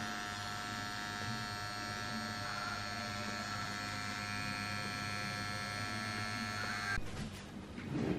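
Tattoo machine running with a steady electric buzz, working ink into the skin, then cutting off abruptly about seven seconds in.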